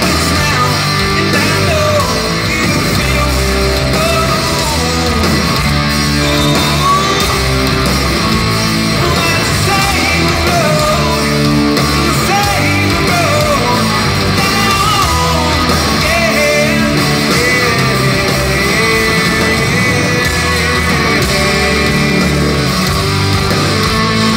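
Post-grunge rock band playing live, with electric guitars, drums and lead vocals, heard from the audience in an arena.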